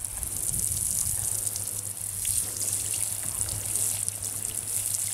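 Water sprinkling from the rose of a watering can onto flowers and grass, a steady hiss of spray.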